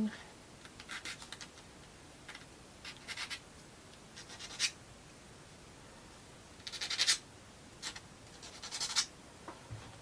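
Plywood parts of a wooden mechanical model kit scraping and rubbing against each other as they are fitted together, in short separate bursts of scratching about once or twice a second, loudest about seven seconds in.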